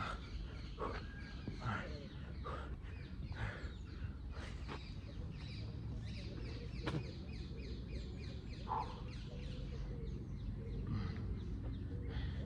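Birds calling and chirping repeatedly, with short falling chirps, over a steady low background rumble.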